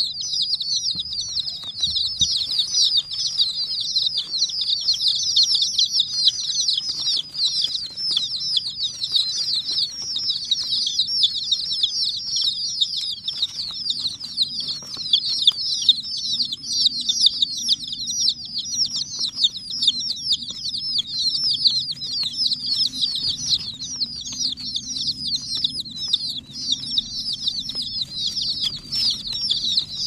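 A crowd of baby chicken chicks peeping nonstop, many short, high, falling peeps overlapping without a break.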